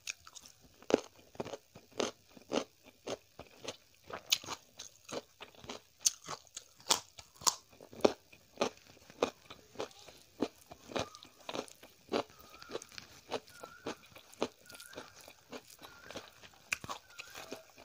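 Raw carrot being crunched and chewed close to the microphone: sharp crisp crunches about two to three a second, loud at first and growing smaller and softer in the second half.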